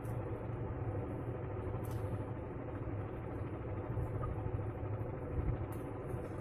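Steady low background rumble, with a few faint clicks.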